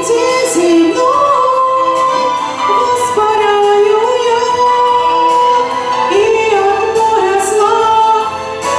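A woman singing a Christian song with musical accompaniment.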